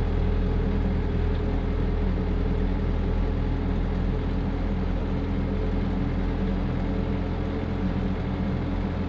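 Landini Powerfarm 95 tractor's diesel engine running steadily under way, heard from inside the cab as a low rumble.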